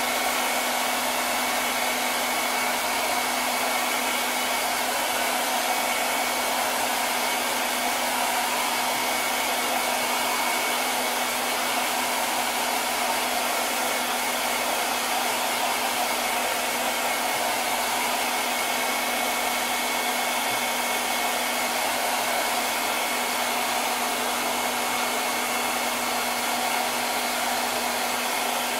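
Handheld hair dryer running steadily: a continuous rush of air with a steady motor hum under it.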